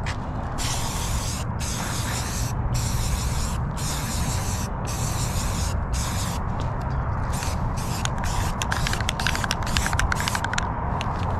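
Aerosol spray-paint can spraying primer in a series of hissing bursts, about six of roughly a second each, then a quicker run of short bursts near the end. A steady low rumble runs underneath.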